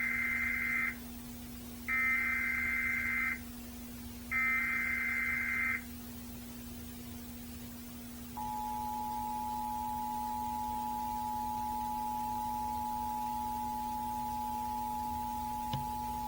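Emergency Alert System tones played through an old TV's speaker: three screechy SAME header data bursts, about a second and a half each with short gaps, then after a pause the two-tone EAS attention signal, a steady dual-pitched tone held for about eight seconds. A steady low hum runs underneath.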